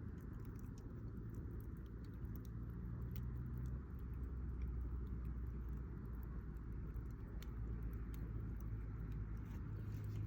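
Wood campfire crackling with scattered small pops, over the steady low hum of a motor vehicle engine running nearby that grows louder near the end.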